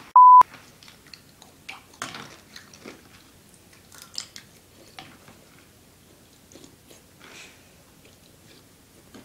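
A brief loud electronic beep at the start, then quiet eating sounds: chewing and small clicks of a spoon in a bowl.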